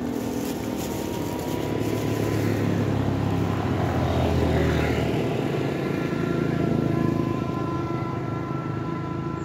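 Motorcycle engines running past on the road, a steady drone that grows louder toward the middle and eases off near the end.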